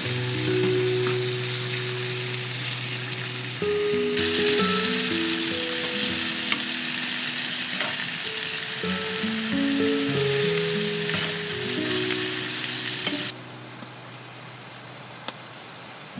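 Cubes of meat sizzling as they fry in a hot pan. The sizzle gets louder about four seconds in and cuts off suddenly a few seconds before the end.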